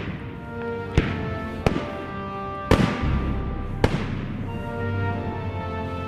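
Background music with sustained notes, cut through by five sharp bangs at uneven intervals in the first four seconds.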